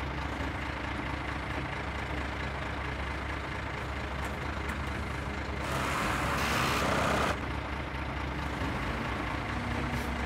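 Boom truck's engine running steadily while its crane holds and lowers a concrete dry well ring. About six seconds in, a louder hiss lasts a second and a half.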